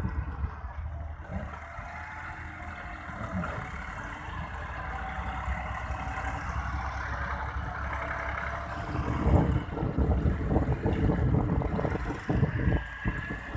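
Tractor diesel engine running steadily under load with a faint steady whine, while wind buffets the microphone in irregular low gusts that grow stronger about two-thirds of the way through.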